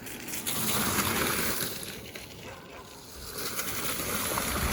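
Wet-road rushing noise of an electric bike riding in the rain: a steady hiss of tyres and spray that swells twice.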